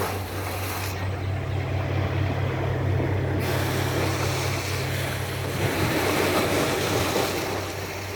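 A steady low motor hum under a broad rushing noise. The high part of the rushing drops away for about two seconds near the start, then returns.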